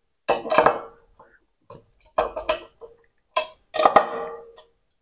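Metal clinking of a spanner against the nuts and steel mounting flange of an electric geyser's heating element, as the element is bolted down. It comes in several short clusters of clinks, each with a brief ring.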